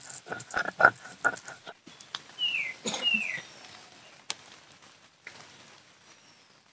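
Stone grinding mustard and poppy seed paste on a flat grinding slab, scraping in quick rhythmic strokes that stop about two seconds in. Then two short falling bird calls, half a second apart.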